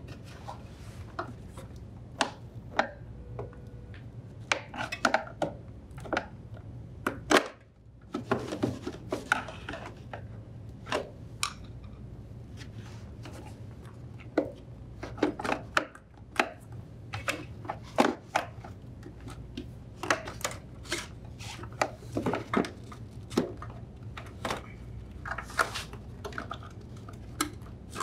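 An LG refrigerator's condenser fan shroud assembly being worked out of its compartment by hand: a long run of irregular clicks, knocks and rubbing, with one sharper knock about seven seconds in.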